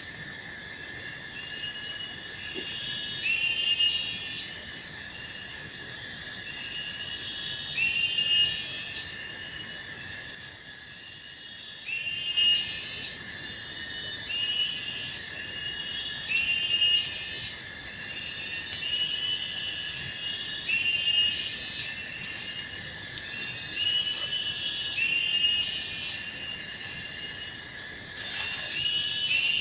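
Chorus of insects and frogs: a steady high-pitched drone under short chirping calls that repeat every second or two, with a louder pulsing call about every four seconds.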